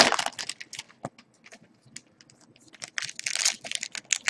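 Foil trading-card pack wrapper crinkling and tearing as it is ripped open by hand, in crackly bursts at the start and again about three seconds in, with a quieter stretch of small rustles between.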